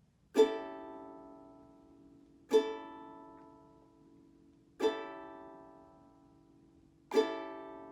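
Ukulele strummed down four times on an A7 chord, about two seconds apart. Each strum rings out and fades before the next.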